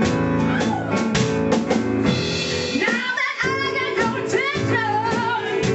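Live band music with a drum kit keeping a steady beat under held chords; about halfway through, a singer's voice comes in with wavering, sliding notes.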